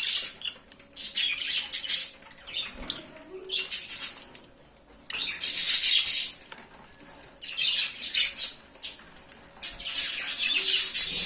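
Lovebird squawking in repeated harsh, high-pitched bursts with short pauses between them.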